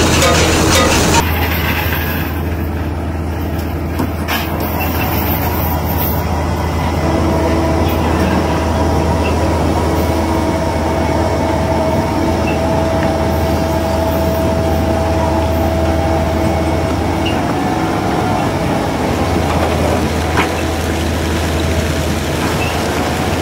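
Steady low drone of a fishing vessel's engines and deck machinery. A higher steady whine joins about seven seconds in and fades out about ten seconds later.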